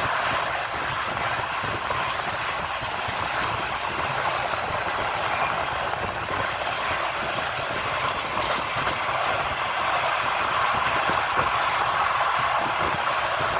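Wheels of a moving train on the rails, a steady rushing rumble with a faint clatter.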